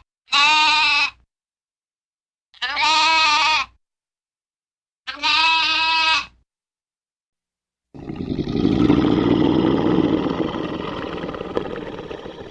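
A farm animal bleating three times, each call about a second long with a quavering pitch. About two-thirds of the way in, a loud noisy rushing sound without any pitch begins and slowly fades.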